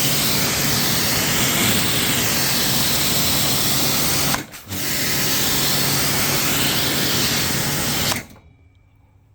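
Powercraft electric pressure washer running at full pressure: the motor and pump hum under the loud hiss of the water jet on the paving slabs. The spray stops briefly about halfway through, starts again, and cuts off shortly before the end.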